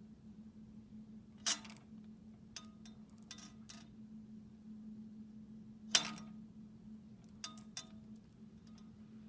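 Marbles and a plastic ruler knocking together: two sharp clacks, about a second and a half in and about six seconds in, with several lighter clicks between and after, over a steady low hum.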